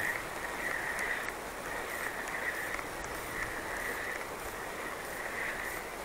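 Fishing reel being cranked on a retrieve, a rhythmic whirr coming about once every one and a half seconds, over the steady wash of the river.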